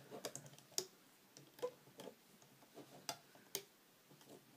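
Faint, irregular clicks and taps of rubber loom bands being stretched and hooked over the plastic pegs of a Rainbow Loom.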